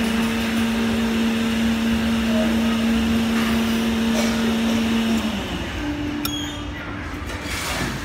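A machine's steady hum with a low tone, which stops a little over five seconds in, its pitch sagging as it dies away; a short click follows about a second later.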